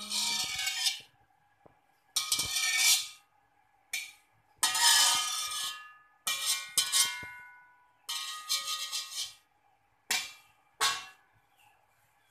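Slotted stainless-steel spatula scraping across the bottom of an empty, dry steel wok, about eight strokes of a second or less with short gaps, the wok's metal ringing after several of them.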